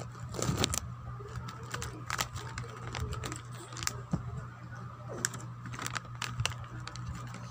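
Scattered light clicks and short crinkling noises, as of something being handled, over a steady low hum.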